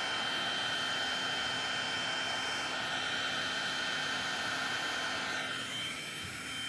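Electric heat gun running steadily, its fan blowing hot air with an even whoosh and a faint high whine, as it heats a vinyl convertible top to shrink out wrinkles. The tone shifts slightly and the sound dips a little near the end.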